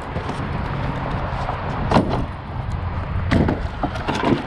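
Pieces of dumped lumber knocking and clattering as they are handled and sorted, with a few sharp knocks, the loudest about two seconds in and a cluster a little after three seconds, over a steady low rumble.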